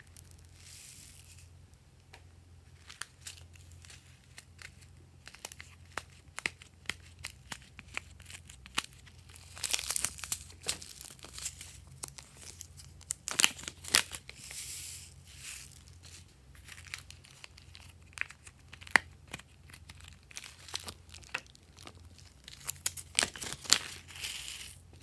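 Thin plastic zip-lock bag crinkling as it is handled and opened, with many small sharp clicks and patters as foam beads are poured from a plastic container and the bag. The crackling comes in bursts, loudest about ten, fourteen and twenty-three seconds in.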